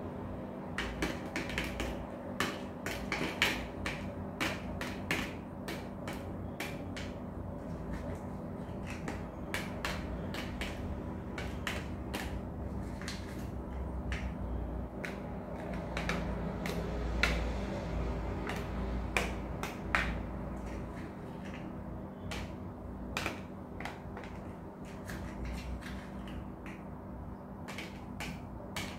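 Raisins dropped by hand into clear plastic tubs, each landing with a light click or tap, irregularly one or two a second, over a steady low hum.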